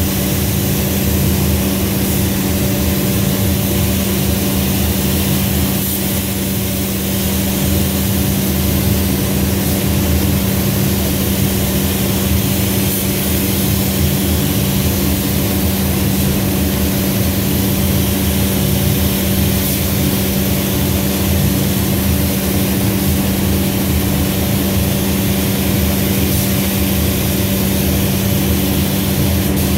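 Steady hiss of an air spray gun laying down automotive clear coat, over a steady low machine drone.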